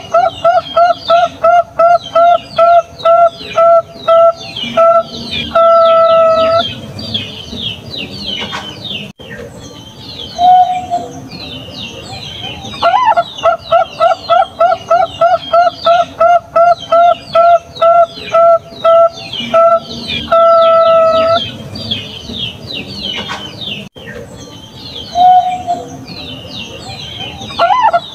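Zebra dove (Bangkok-type perkutut) singing: a quick run of short staccato coos, about two to three a second, ending in one longer drawn-out note. The song repeats about every 14 s, with a single short coo in each pause. Higher-pitched chirping from other birds runs behind it.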